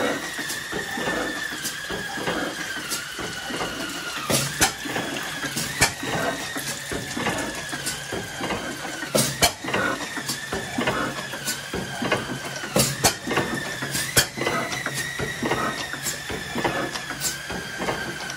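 Blackstone hit-and-miss engine running: a continuous mechanical clatter and ticking with irregular sharp knocks a second or more apart, over a steady high whistle that wavers slightly.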